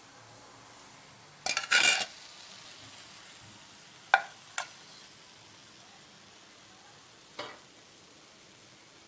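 A metal strainer scrapes and clatters against a metal kadhai for about half a second, draining the fried sabudana vadas of oil. A little after four seconds in come two sharp ringing clinks, and a fainter knock follows near seven and a half seconds.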